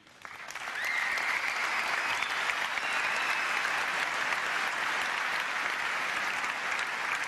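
Large audience applauding, swelling over the first second and then holding steady, with a high whistle rising through it about a second in.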